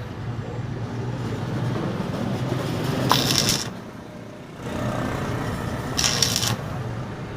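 Arc welder tack-welding a steel tube onto a broken screw inside a dumbbell: two short crackling, sizzling bursts of the arc about three and six seconds in, over a steady hum.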